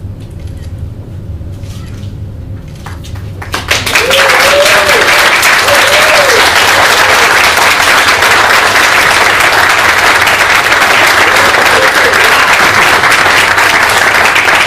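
Audience breaking into loud applause about four seconds in and clapping steadily after that, with a few voices calling out over it.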